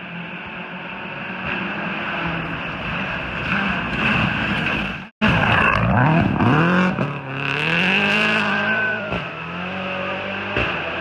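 Rally car engine at speed, its pitch slowly climbing. About five seconds in it cuts out for an instant, then comes back louder, revving hard with the pitch repeatedly rising and dropping through gear changes before settling to a steadier note.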